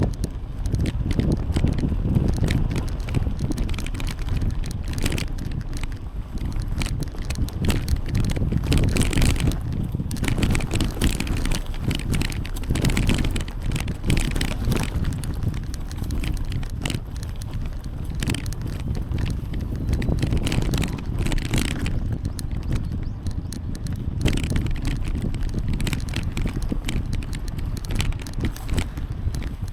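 Wind buffeting the microphone of a riding cyclist's camera, with bicycle tyres rolling on a paved path and frequent small clicks and rattles.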